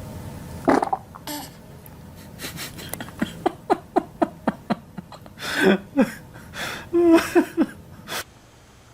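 A run of short farts, about three a second, each falling in pitch, after a single louder burst just under a second in; the run stops suddenly near the end.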